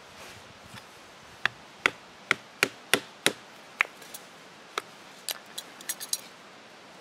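Sharp taps of a hand tool being struck, most likely an awl or ice pick driven through heavy leather into a log to punch stitching holes. A run of about seven strong taps, roughly three a second, comes first, then a few lighter, quicker taps near the end.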